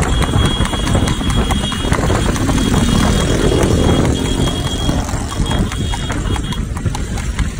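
Trotting horse's hooves clattering on asphalt while it pulls a spoked-wheel racing cart, mixed with the steady running of a motorcycle engine alongside and wind noise.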